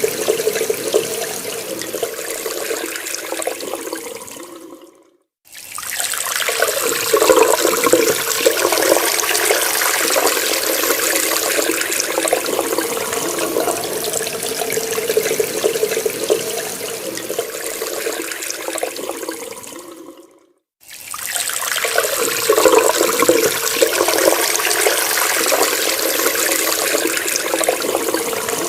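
Water running from a tap and splashing steadily. It fades out to a moment of silence and comes back twice, about five seconds in and again about twenty seconds in.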